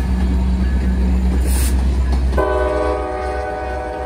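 Diesel freight train running close by with a deep engine rumble. About two and a half seconds in, a locomotive air horn starts a steady multi-note chord and holds it.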